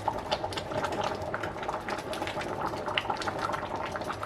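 A pot of bean soup with ham hocks simmering, its surface bubbling and popping in a steady stream of small pops.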